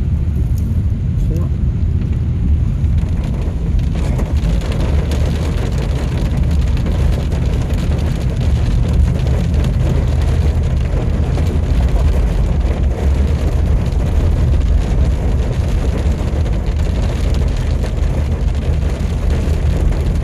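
Steady low rumble of a car driving on a wet road in heavy typhoon rain, with a continuous hiss and patter of rain and spray.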